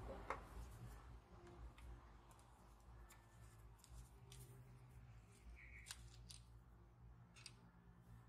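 Near silence with a low steady hum, broken by scattered faint clicks and a brief scrape about six seconds in.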